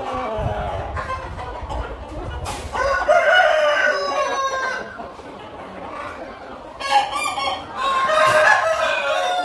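Aseel game roosters crowing: one long crow about three seconds in and another near the end, with a shorter call between.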